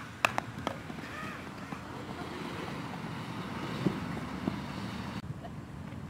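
Softball bunt: one sharp knock of the ball on the bat about a quarter of a second in, then a lighter click, followed by steady wind on the microphone and a few soft footfalls on infield dirt as the batter runs.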